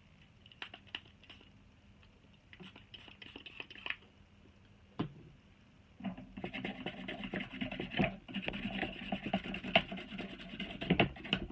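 Toothbrush bristles scrubbing the solder side of a laptop power adapter's circuit board, a fast scratchy rubbing that starts about six seconds in. Before that there are only a few faint clicks.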